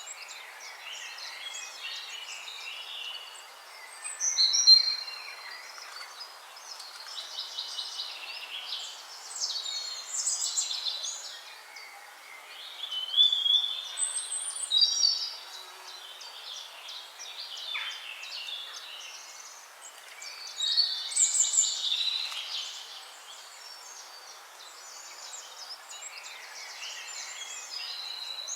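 Several birds singing and calling at once: overlapping chirps, whistles and trills over a steady hiss, with louder bursts of song about four seconds in, around thirteen to fifteen seconds, and around twenty-one seconds.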